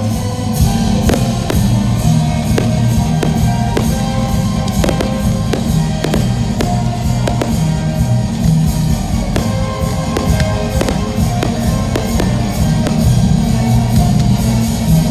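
Loud music with a drum beat playing over a fireworks show, with firework bursts popping throughout.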